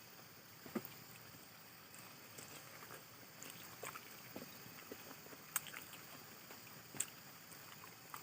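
A person chewing and eating pork with fermented bamboo shoots: faint, irregular chewing and mouth sounds, broken by a few sharp clicks, the loudest about a second in, at about five and a half seconds and at about seven seconds.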